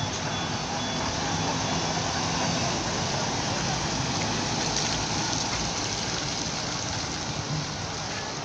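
Vintage trolleybus driving past at low speed: a steady hiss of tyres and running gear over a faint low hum, a little louder about two to three seconds in, then easing as it moves away.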